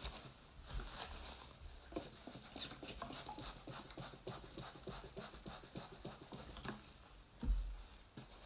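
Gloved hand rubbing soapy, wet wool through a felting mesh: many quick, soft strokes, one after another.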